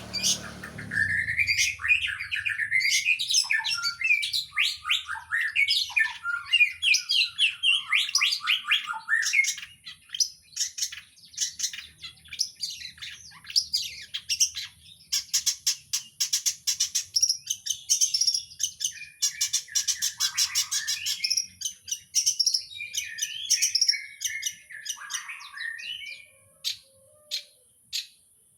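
Long-tailed shrike (cendet) singing a long, varied song of mimicked calls, packed with fast rapid-fire runs of repeated notes. Near the end the song breaks up into single sharp chips about a second apart.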